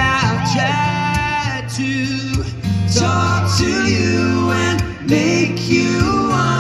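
Live band playing a slow pop ballad: a male singer's vocals, gliding and bending in pitch, over strummed acoustic guitar and a steady bass line.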